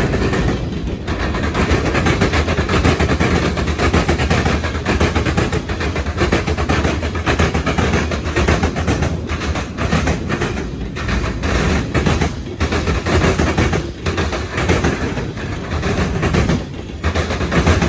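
Train wheels pounding over railroad diamonds in a rapid run of loud bangs, car after car, over the steady noise of the passing train.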